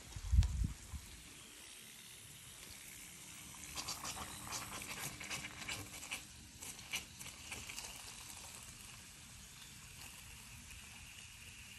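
A low thump about half a second in. Then lawn irrigation sprinkler heads sputter and spit water in irregular crackles, followed by a faint steady hiss, the sign of weak water pressure in the sprinkler line.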